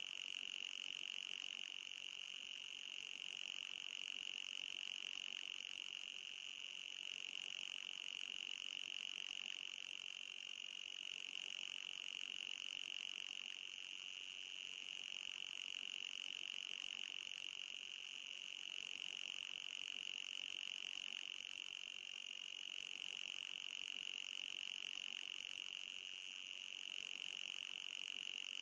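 Synthetic mosquito-repeller sound: a continuous high-pitched electronic buzz centred near 3 kHz, with a fainter, higher band above it. It swells and eases gently every several seconds without ever stopping.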